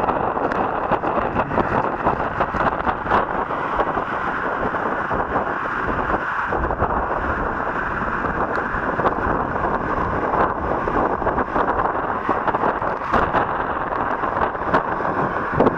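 Waterfall pouring into its plunge pool: a steady, loud roar of falling water.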